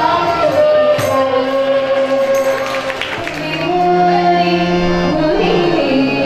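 A female voice singing a melody over a harmonium's held reed notes, picked up through a stage microphone.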